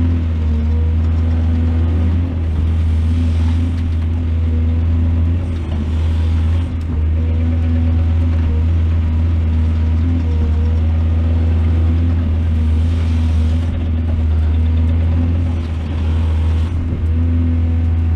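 Heavy diesel engine of earthmoving equipment running steadily with a deep drone, with brief surges of hissing noise every few seconds.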